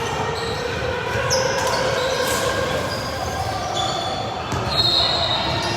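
Basketball game on an indoor court: a ball being dribbled amid a steady bed of game noise, with short high-pitched tones here and there.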